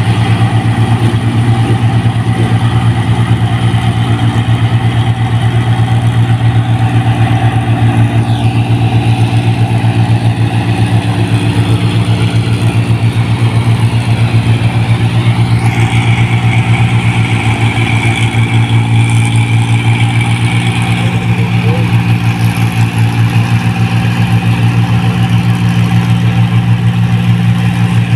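New Holland 1545 combine harvester running steadily while it cuts rice, its diesel engine giving a loud, even drone with a fast throb.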